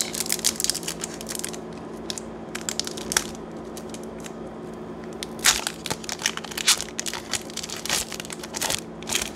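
Foil wrapper of a Pokémon trading-card booster pack crinkling and crackling as it is torn open and handled. The crackles come in dense runs, with a lull of about two seconds in the middle.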